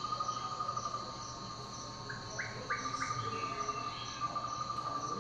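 Dance soundtrack of high, insect-like chirring: a pulsing steady tone with fainter higher pulses about four a second, and three short rising chirps about two to three seconds in.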